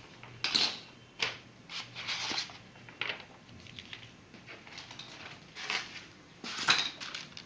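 Handling noise: a handful of short rustles and clicks as a sheet of paper and the camera are moved about, with the loudest cluster near the end.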